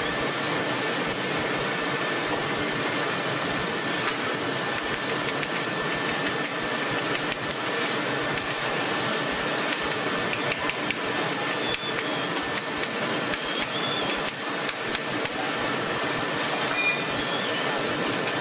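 Hot-coil spring winding machine running: a steady mechanical din with scattered short metallic clicks and clinks as the red-hot steel bar is wound onto the mandrel.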